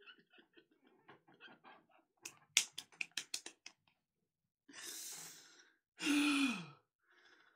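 A man laughing hard without words. Faint breathy laughter gives way to a quick run of about eight sharp hits in under two seconds, then a wheezing intake of breath and a loud sigh-like 'ahh' that falls in pitch.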